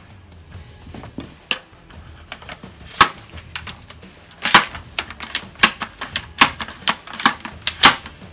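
4.5 mm CO2 air rifle firing a string of sharp shots: a few spaced a second or more apart, then a quicker run of about two shots a second.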